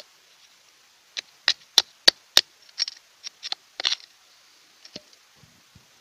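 Sharp clicks and knocks of a metal hand trowel against stones and gravelly soil, about a dozen in quick succession between about one and four seconds in, then a few fainter knocks.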